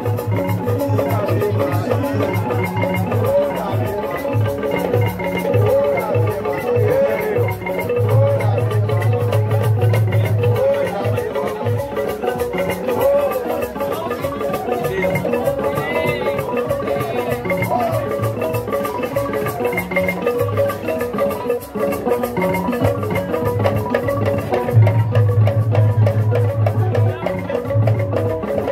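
Live traditional drum music: hand drums keep up a fast, steady beat, with other percussion layered over them.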